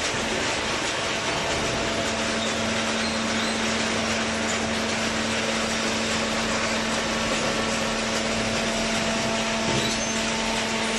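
Horizontal hydraulic cardboard baler running: a dense, steady mechanical noise, with a steady hum that sets in about a second and a half in.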